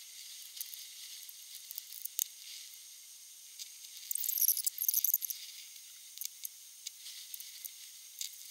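Nitrile-gloved hands and a brush pressing resin-wet carbon fibre cloth into a mould: a sticky crackling and rustling with scattered small clicks, thickest about four to five seconds in.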